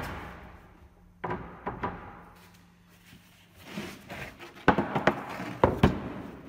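Pine boards knocking against a workbench as they are handled and laid down: a few sharp knocks a little over a second in, and another cluster of knocks near the end.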